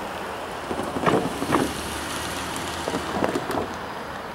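Steady outdoor background noise with wind on the microphone, broken twice by short clusters of louder sounds, about a second in and about three seconds in.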